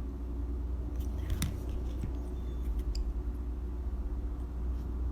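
Steady low hum with a few faint clicks and small handling noises.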